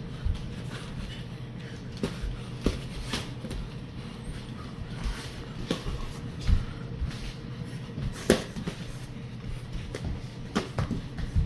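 Boxing gloves smacking against gloves and arms at irregular moments during light sparring, with low thuds of bare feet on a wooden floor, over a steady low hum. The two loudest smacks come about the middle of the stretch.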